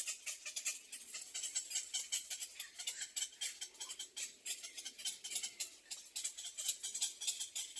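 Baby bird in the nest chirping in a rapid, continuous string of short high-pitched calls.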